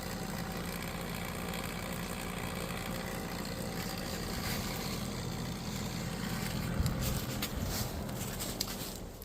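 A motor running steadily with a low hum, with a few short knocks about seven seconds in.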